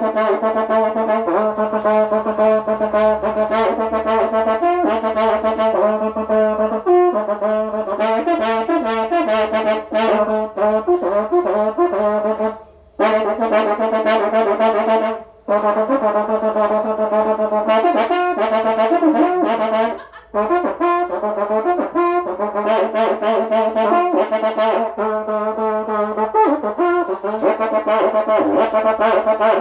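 Karnay, the long Uzbek brass trumpet, sounding long held blasts with a wavering ornamented tone. The blasts break off briefly about thirteen and twenty seconds in.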